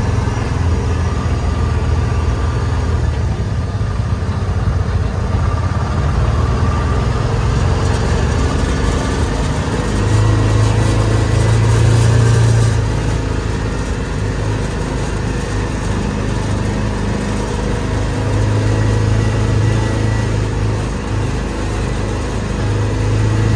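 Side-by-side UTV engine running at low speed, heard from on board the buggy. It pulls harder for a couple of seconds about ten seconds in, then settles back.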